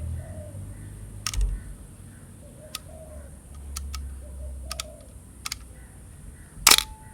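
Canon F-1 35 mm film SLR being handled: a scattered series of small mechanical clicks from cocking the shutter and working its controls, with a louder, sharp double click near the end.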